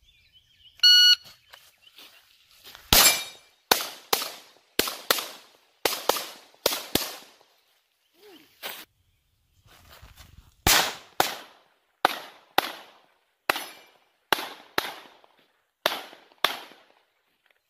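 A shot timer beeps about a second in, then a Glock 44 .22 LR pistol fires rapid shots, about two dozen in all, in two strings with a pause of about two seconds between them.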